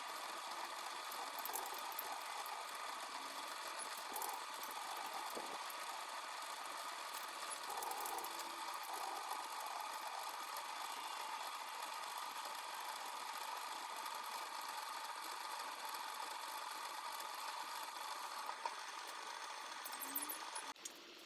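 Small metal lathe running steadily under motor power, a continuous mechanical whir with a light rattle; it cuts out briefly near the end.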